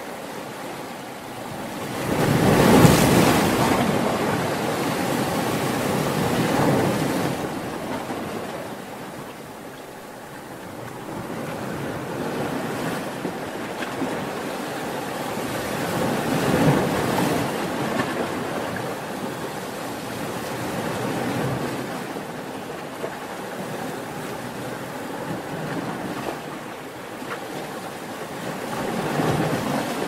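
Ocean waves breaking: a continuous wash of surf that surges and falls back several times, the loudest surge about three seconds in.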